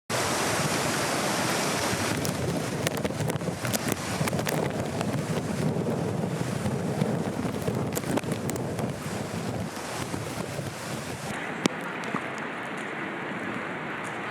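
Floodwater rushing in a steady loud roar of noise, with wind buffeting the microphone. About eleven seconds in it turns quieter and duller, and a single click follows.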